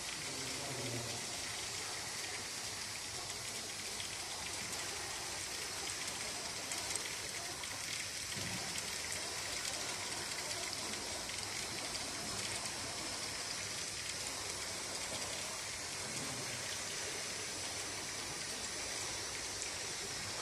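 Steady hiss of background noise with faint, indistinct voices in the background.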